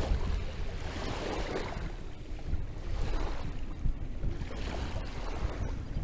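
Wind buffeting the phone's microphone as a low rumble, over the wash of small sea waves on the beach that swells and fades every second or so.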